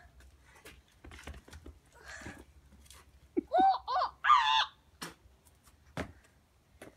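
A child's voice in three short, high-pitched yells about halfway through, amid scattered light clicks and knocks.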